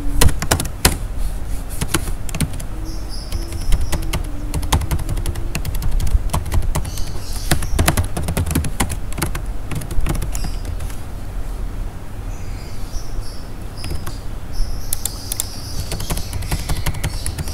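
Computer keyboard keys clicking in irregular bursts as code is typed, over a low steady hum.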